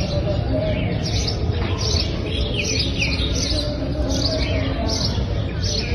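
Small birds chirping in quick, high, falling notes, a few each second, over a steady low background noise.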